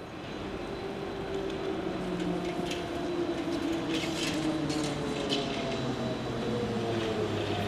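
Trolleybuses on a city street under overhead wires: a steady electric-drive whine that slowly falls in pitch, over general traffic noise, with a few light clicks.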